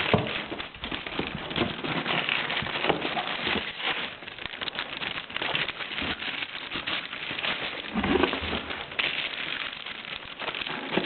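Cardboard box and plastic packaging rustling and crinkling while a printer is worked out of its box, with scattered knocks and a couple of louder bumps.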